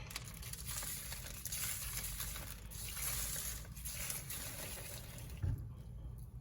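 Water running in a steady stream that stops shortly before the end, with a single knock as it stops.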